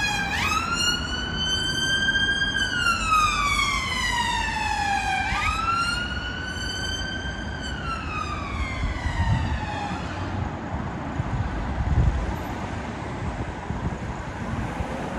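UK emergency vehicle siren on a wail: the pitch jumps up quickly, then falls slowly, twice, with the vehicle passing. The siren fades away about ten seconds in, leaving road noise with low rumbles.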